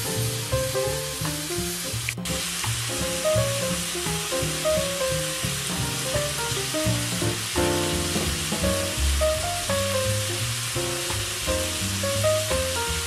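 Chopped onion, carrot and celery sizzling as they sauté in a pot, under background music. The sound drops out briefly about two seconds in.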